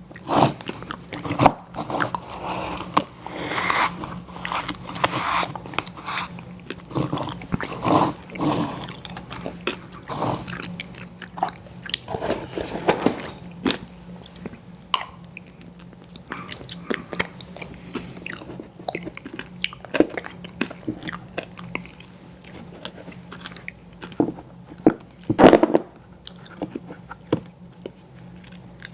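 Close-up mouth sounds of someone eating ice cream with bits of snack cake: wet chewing, smacking and small crunches, with one louder smack near the end. A faint steady hum runs underneath.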